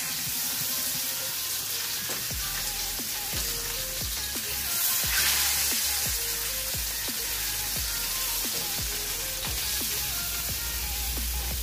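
Salmon fillets sizzling in hot oil in a nonstick frying pan as they are turned over with a wooden spatula, a steady hiss.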